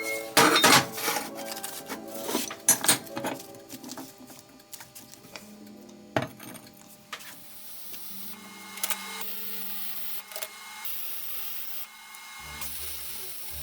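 Workshop tool noises: a run of sharp knocks and scrapes in the first few seconds and another knock about six seconds in, then stretches of steady mechanical running that start and stop abruptly.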